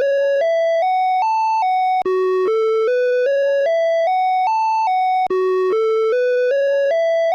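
Åland Islands emergency alert (EAS) alarm tone: a run of electronic notes climbing step by step in pitch, then dipping one step, repeating about every three seconds with a short break between runs.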